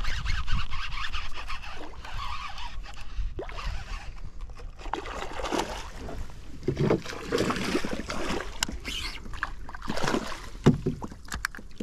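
A hooked bass splashing in the water beside a kayak as it is brought in and scooped into a landing net, with water sloshing in the net. A few sharp knocks of gear against the kayak near the end.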